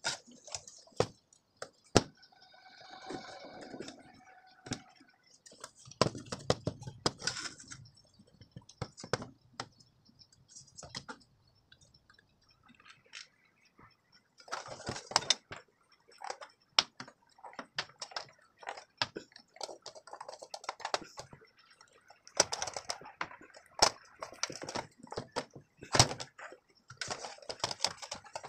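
Irregular clicks, knocks and scraping of an amplifier being taken apart by hand: knobs pulled off, the metal front panel and chassis handled, and the front control circuit board worked loose.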